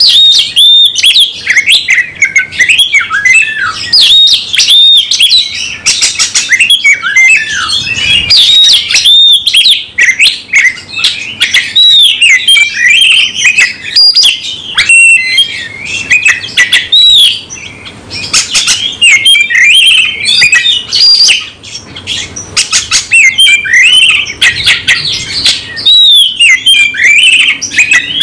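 Caged oriental magpie-robin (kacer) singing loudly and almost without pause. It gives a fast, varied run of rising and falling whistles, chirps and harsher notes: the persistent, full-repertoire song of a bird in fighting mood.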